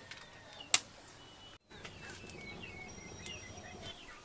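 A single sharp strike of a matchstick on a matchbox about a second in, over small birds chirping and whistling.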